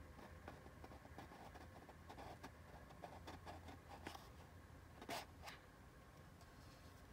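Faint scraping and rubbing of an old cardboard box as its inner tray slides out of the sleeve, with small ticks throughout and a slightly louder scrape about five seconds in.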